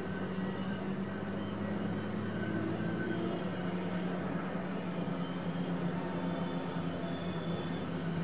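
Steady low rumble of long double-stack container freight trains rolling past at a distance, with faint, brief high-pitched tones over it.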